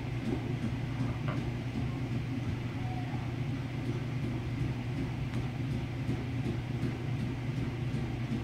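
A steady low hum, with a few faint ticks.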